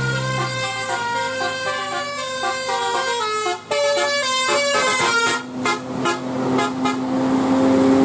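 Bus telolet horn, a multi-tone musical horn, playing a tune of quickly changing notes, with a short break about three and a half seconds in and a steady low note held through the second half.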